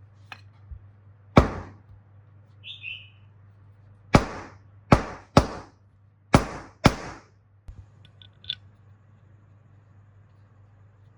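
Six sharp knocks at irregular spacing, the loudest coming in two close pairs in the middle, with a few faint clicks and a brief scrape between them: something hard being struck, such as a part of the planer being tapped.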